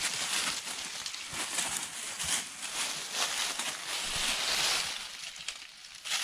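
Dry fallen leaves rustling and crunching as goats scramble up a leaf-covered bank, with many small sharp crackles. It dies down about five seconds in.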